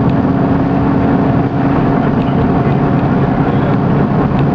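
Engine, turbo and road noise of a tuned Skoda Fabia vRS heard from inside the cabin while it is driven hard. The engine note drops, with a brief dip in loudness about a second and a half in.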